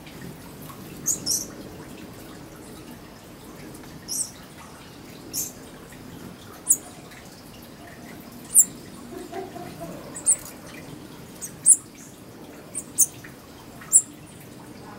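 Small birds at hummingbird feeders giving short, sharp, high-pitched chip calls, about a dozen of them at irregular intervals.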